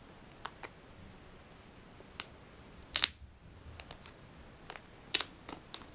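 Scattered sharp clicks and taps from boxes being handled, about a dozen. The loudest come about three seconds in and again a little after five seconds.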